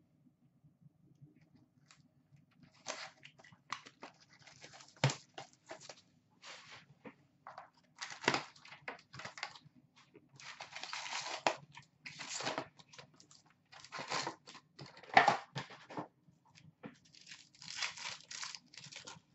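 Trading-card box packaging torn open and crinkled by hand: irregular bursts of tearing and rustling, the loudest about 15 seconds in.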